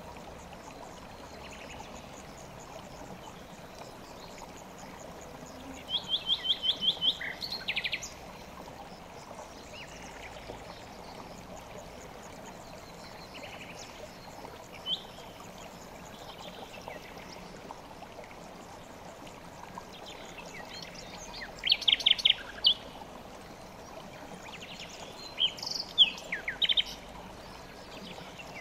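River water flowing steadily, with a songbird singing three short phrases of quick repeated high notes: about six seconds in, around twenty-two seconds, and near the end.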